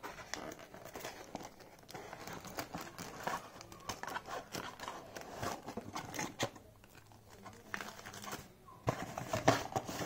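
Plastic packaging crinkling and thin cardboard rustling and scraping as items are pulled from a small cardboard box and its flaps are bent open, louder about nine seconds in.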